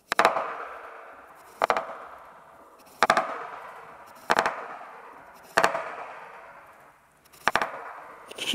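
Large kitchen knife chopping through a cucumber onto a bamboo cutting board: six sharp chops, roughly one every second and a half, each followed by a short fading ring.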